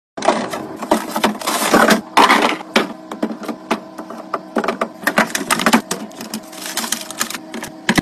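Food containers, tubs and cheese packs being put onto refrigerator shelves and into plastic drawers: a quick run of plastic clacks and knocks, with packaging rustling in between.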